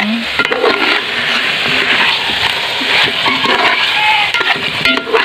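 Chicken pieces sizzling in curry in an aluminium pot, stirred with a metal ladle that scrapes and clicks against the pot.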